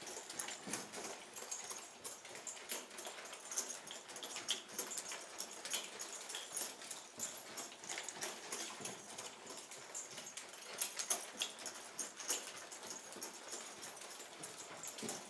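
A horse's hooves moving over the sand footing of a round pen: a soft, irregular run of scuffs and light thuds.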